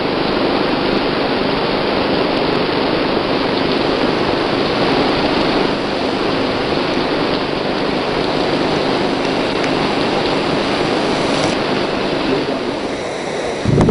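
Heavy rain pouring onto a flooded road surface, a steady hiss of drops splashing into standing water, easing slightly near the end.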